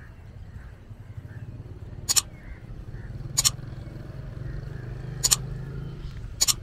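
Outdoor street ambience: a low engine hum of a motor vehicle that swells and fades, faint bird chirps, and four sharp clicks spaced irregularly a second or two apart, the loudest sounds present.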